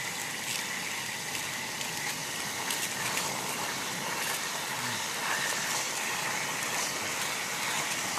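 Chicken pieces deep-frying in hot oil in a pan: a steady sizzle with scattered small crackles.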